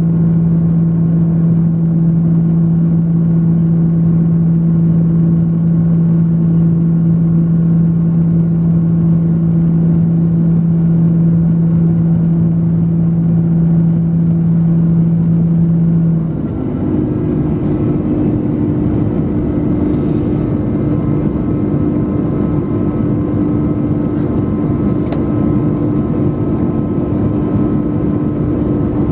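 Airbus A330-300 jet engines heard from inside the cabin during the climb after takeoff: a steady, loud drone with a low hum. About sixteen seconds in, the hum shifts to a slightly higher pitch and the overall level drops a little.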